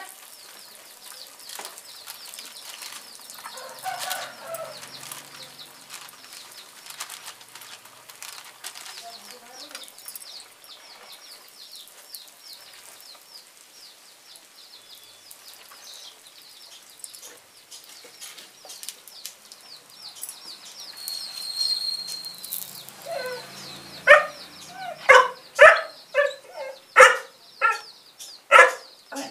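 Spiced rice-flour cakes deep-frying in oil in an iron karahi, a steady sizzle. About 24 seconds in, a chicken clucks loudly about seven times in quick succession.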